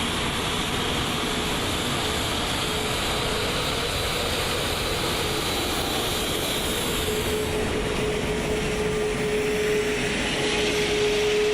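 Steady cockpit noise of an Airbus A380 taxiing after landing: a broad hiss of airflow and engine noise with a steady humming tone that grows louder over the last few seconds.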